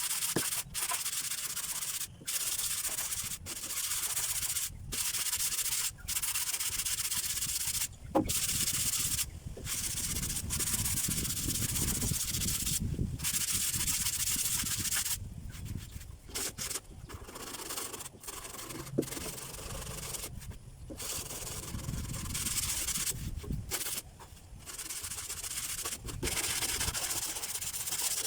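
Sanding on the body of a Bajaj three-wheeler: a rasping noise in runs of a second or two, broken by short sudden gaps.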